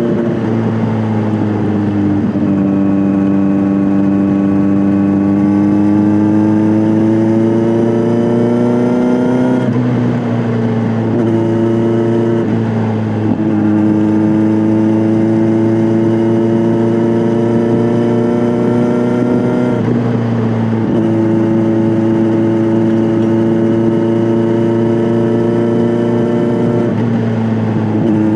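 Kawasaki Z900 inline-four engine through an SC-Project S1 aftermarket exhaust, heard on the move: the engine note climbs slowly under steady throttle, then drops abruptly at each of several gear changes.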